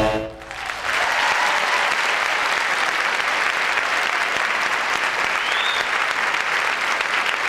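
A theatre audience applauding steadily after the final sung and orchestral chord of a musical number cuts off in the first half-second. A brief rising tone sounds over the clapping about five and a half seconds in.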